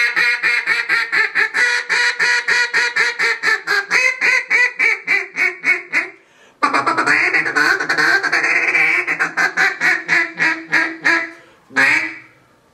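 Wooden timber duck call with a spalted maple barrel, blown in a close-in timber calling routine. It gives a long string of quick quacks, about five a second, that gradually fade toward a short pause about six seconds in, then a denser, faster run of notes that tapers off, and a couple more quacks near the end.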